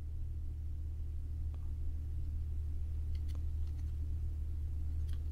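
A steady low hum, with a few faint clicks and ticks as fingers pick and peel at the plastic film and card backing of a tempered-glass camera lens protector package.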